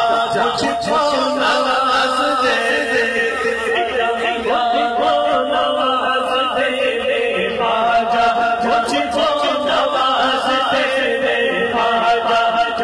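A man singing a naat, an Urdu devotional song, into a microphone in a chanting melodic style.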